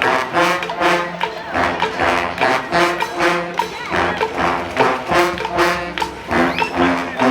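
Brass-and-percussion street band playing a tune on a steady beat, horns sounding chords and a melody over drum strokes about twice a second.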